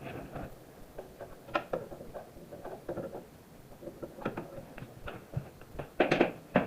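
Scattered light clicks and knocks of hand tools and metal parts being handled while working on a riding mower's drive pulley, with a louder clatter about six seconds in.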